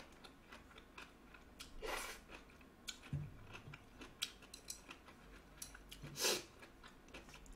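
Close-up eating sounds: chopsticks clicking against the pan and each other as instant ramen noodles are picked up, with soft chewing. Two longer breathy rushes come about two seconds and six seconds in.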